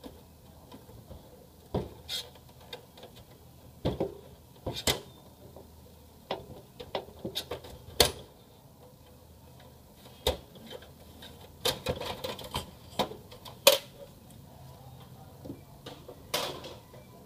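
Irregular sharp clicks and knocks as the plastic side cover of an HP LaserJet M1132 laser printer is pried off its metal chassis by hand, its clips snapping loose. There is a quick run of clicks just before the loudest knock, about three-quarters of the way through.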